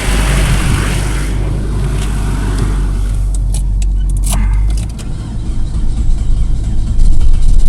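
A car engine running with a low, steady rumble while a car with a flat battery is jump-started, with a few sharp clicks about three to four seconds in. From about five seconds in the sound turns uneven and pulsing, then grows loud near the end.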